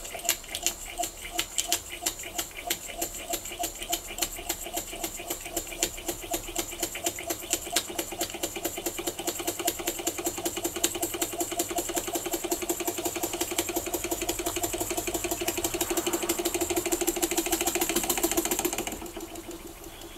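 Very old vertical steam toy engine with a brass boiler running under steam, its rapid regular exhaust beats and rattle quickening until they blur into a continuous fast run. The sound falls away sharply near the end.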